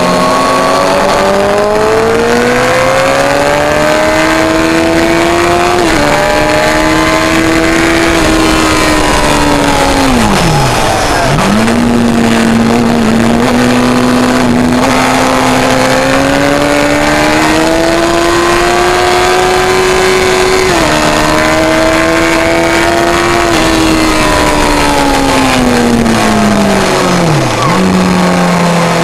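Suzuki GSX-R1000 K1's inline-four engine pulling hard on track, heard from an onboard camera over steady wind rush. Its pitch climbs steadily with quick drops at upshifts, and twice falls away to a low dip and jumps back up as it slows and downshifts.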